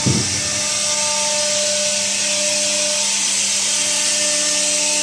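Fiber laser welding machine running with its cooling fans going: a steady hiss with a few faint steady hum tones underneath. A short low thump comes right at the start.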